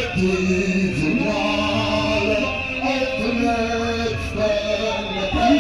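A man singing through a microphone and portable loudspeaker, amplified and carrying over the street, with sustained sung notes over a musical backing.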